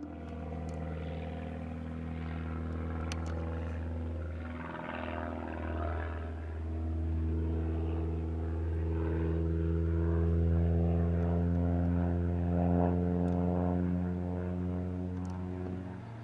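Christen Eagle II aerobatic biplane's four-cylinder Lycoming engine and propeller droning steadily in flight. The pitch drifts slowly, and the sound grows louder to a peak about two-thirds through, then eases.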